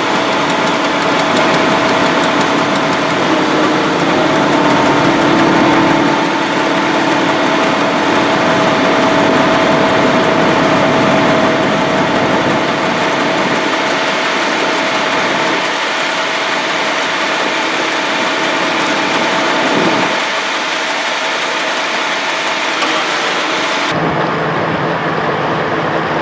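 Ferry's engine running steadily, a constant loud drone with a few held tones, heard on board the MV Pangani II during the river crossing. The sound changes abruptly near the end.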